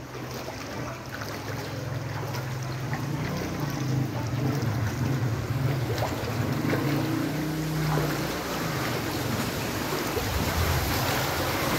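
Floodwater splashing and sloshing, getting louder toward the end, with a steady low hum underneath.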